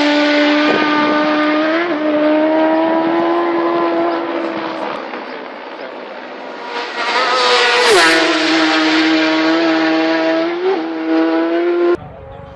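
Racing motorcycles at full speed. The first pulls away with its engine note held high and a brief gear change about two seconds in. A second comes up and passes about eight seconds in, its pitch dropping sharply as it goes by, then changes up as it pulls away. The sound cuts off abruptly near the end.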